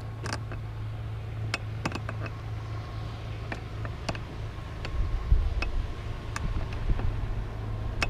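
Steady low hum with scattered sharp clicks at irregular moments. Wind buffets the microphone from about five seconds in.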